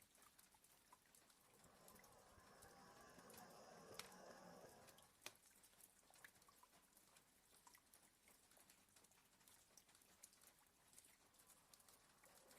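Faint rain tapping on a window in scattered light ticks, and a sleeping border collie's soft snore that swells from about two seconds in and fades just past five seconds.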